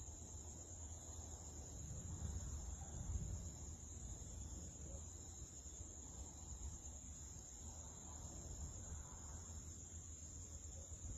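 Night insect chorus: a steady, high-pitched trill. Underneath it runs a low rumble that swells about two to three seconds in.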